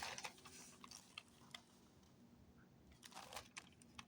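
Near silence: room tone with a few faint short clicks.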